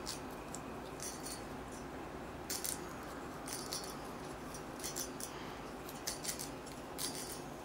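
Light scratching, rustling and clicking of fingers picking at and peeling the cloth wrapping off the base of a glass vacuum tube switch, in short scattered bursts about once a second over a steady background noise.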